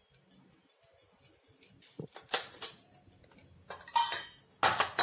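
Metal spoon clinking against the small stainless-steel bowls of a spice box as spice powder is scooped out. A few short clinks come in the second half, the loudest near the end.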